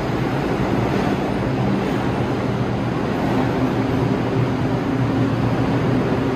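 New York City subway train in the station: steady, loud train noise with low humming tones underneath and no distinct wheel clicks.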